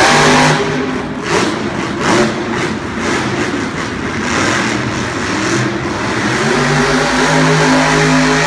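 Carolina Crusher monster truck's supercharged V8 revving hard in repeated surges, then holding a steadier note near the end.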